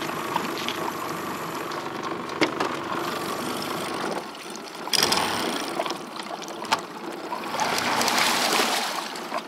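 Small outboard boat motor idling steadily, then a sudden louder noise about five seconds in as the boat gets under way, followed by a rising rush and splash of water at the stern.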